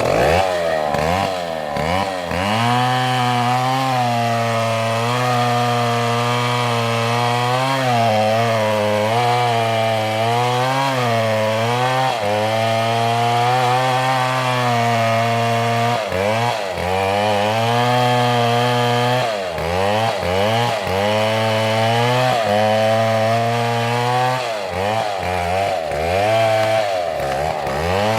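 Two-stroke chainsaw cutting oak, the engine held at high revs under load with its pitch sagging and recovering as the chain bites. Several times it drops off and revs back up, around the middle and again near the end.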